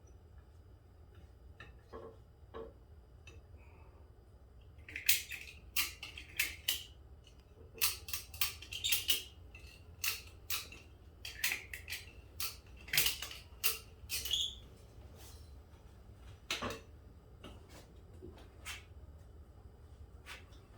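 Irregular sharp metallic clicks and clinks, a dozen or more over about ten seconds starting about five seconds in, from hand work with the ratchet compression strap and fork parts on a motorcycle front fork leg held in a vise.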